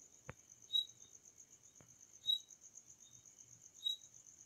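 Faint background insects trilling steadily at a high pitch, with a short, louder chirp about every second and a half. Two light clicks sound in the first two seconds.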